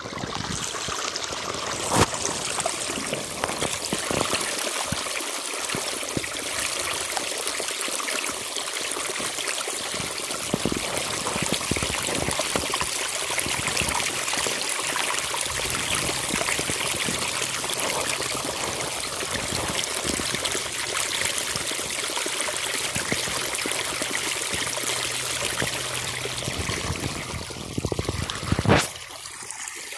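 Irrigation water running steadily along a flooded field furrow, a continuous trickling stream. A couple of brief knocks cut through it, the loudest near the end.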